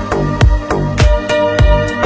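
Background music with a steady beat: a heavy kick drum about every half second under sharp percussion hits and sustained instrumental tones.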